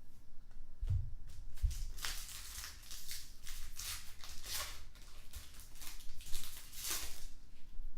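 Trading card pack wrappers crinkling and tearing as packs are opened and cards handled: a run of short rustling bursts. Two soft thumps come about a second in.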